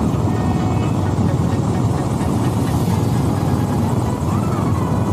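Steady rumble of a moving vehicle's engine and road noise, with wind buffeting the microphone, while travelling along a road.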